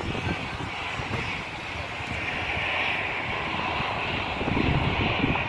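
Distant airliner engine noise, a steady high whine that swells slightly around the middle.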